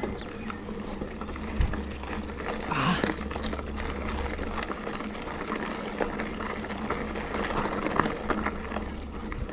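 Mountain bike rolling downhill on a loose gravel dirt road: tyres crunching over stones, with many small irregular rattles and clicks from the bike.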